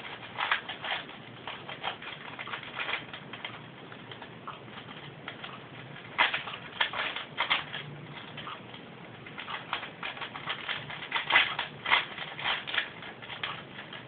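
4x4x4 Rubik's Cube being turned by hand: its plastic layers click and clack in quick, irregular runs of turns, with a lull of a couple of seconds partway through.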